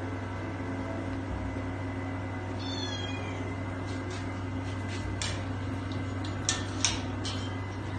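Female cat in heat meowing, her calling a sign of the heat: a falling cry about three seconds in, then several short sharp calls in the second half. A steady low hum runs underneath.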